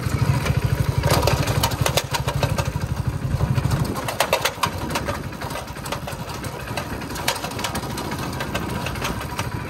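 Hero Splendor's single-cylinder four-stroke engine running as it rides over rough, stony ground, with many sharp rattling knocks from the bike's body. The rider blames the rattle on the bike having been raised. The engine note drops about four seconds in while the rattling carries on.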